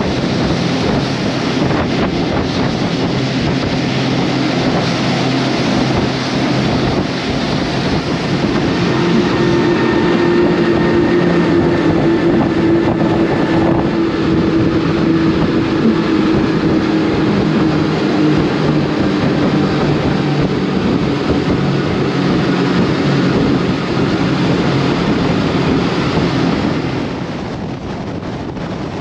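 Four Mercury 400 hp outboard engines running at speed on a catamaran center console, a steady engine drone under the rush of wind on the microphone and hull spray. The sound gets somewhat quieter near the end.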